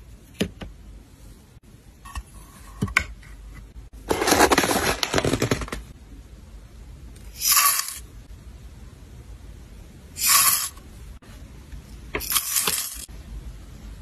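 Dry, twisted black tea leaves tipped from a wooden tea scoop onto a porcelain plate: a few light taps, then a crackling, rustling pour of about two seconds, followed by three shorter spills of leaves rattling onto the plate.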